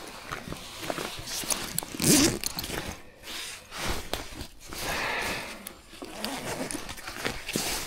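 Irregular rustling and scraping of clothing and fishing tackle being handled, with a short, louder rasp about two seconds in.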